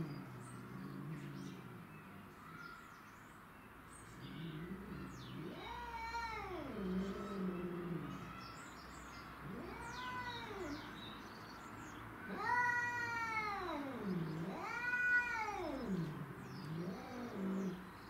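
Domestic cats in an aggressive standoff, yowling at each other: about four long drawn-out wails that rise and then fall in pitch, with low growling in between.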